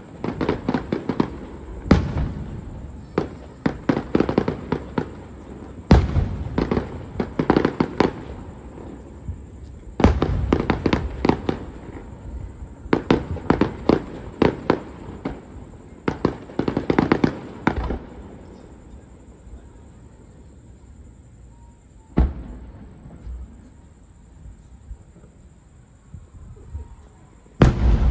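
Aerial fireworks shells bursting, each wave a boom followed by a long run of rapid crackling. The crackling dies away after about eighteen seconds, leaving two single booms near the end.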